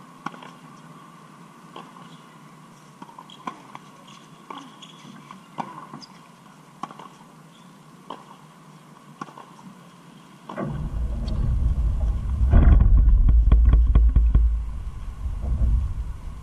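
Sharp knocks of tennis balls being struck, about one a second. About ten seconds in, a loud low wind rumble starts buffeting the camera's microphone, muffling everything else for several seconds before it eases off.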